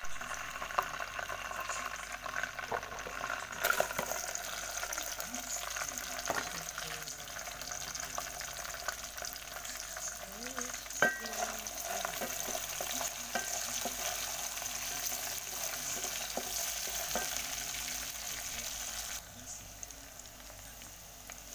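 Chopped red onions frying in hot oil in an aluminium pot, a steady sizzle that grows louder about four seconds in and eases near the end. Scattered clinks and scrapes come from a metal ladle stirring the pot.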